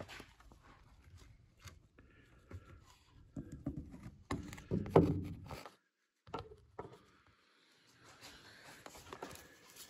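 Faint handling noises: light rustling, small clicks and scrapes, with a few louder knocks and scrapes around the middle, then about a second of dead silence.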